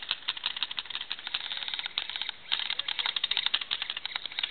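Airsoft guns firing rapid bursts of sharp clicking shots, many a second, with a short break a little past the middle.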